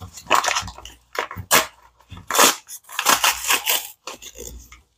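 Cornstarch being measured out of its box with a spoon: a string of short, irregular dry scrapes and rustles.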